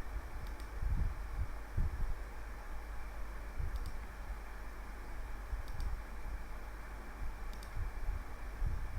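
Computer mouse clicking a few times, each a quick double tick, spaced one to three seconds apart, over a steady low hum and hiss of the recording.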